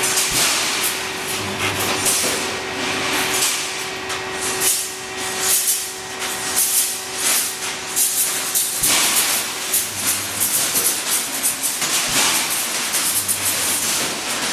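Pneumatic wire mesh welding machine running through its weld cycle: repeated bursts of air hiss and metallic clatter about every second or so, with a low hum that comes and goes.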